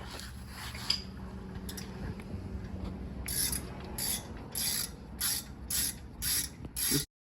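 Hand ratchet wrench clicking as it tightens the rear brake caliper bolts. The clicking comes in a run of about seven back-swings, roughly every half second, from about three seconds in, then cuts off suddenly.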